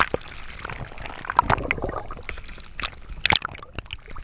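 Sea water splashing over a camera bobbing at the surface, ducked under and brought back up by the waves, with sharp splashes at the very start, after about a second and a half, and again a little after three seconds.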